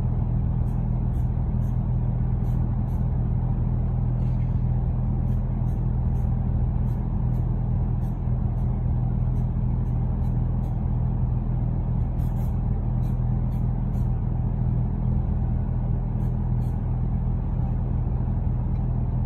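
A low electric motor hum with an even hiss over it, steady throughout, from the shop equipment running while clear coat is sprayed.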